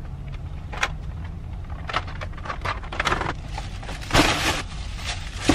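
Plastic shopping bags crinkling and rustling as they are loaded onto a car seat, with several short knocks and bumps. The loudest rustle comes a little past four seconds in, and a sharp knock comes near the end.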